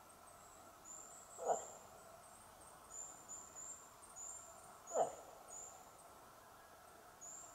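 Two short calls falling steeply in pitch, one about a second and a half in and one about five seconds in: a hunter's imitation of a cow moose, calling for a rutting bull. Faint high chirping runs underneath.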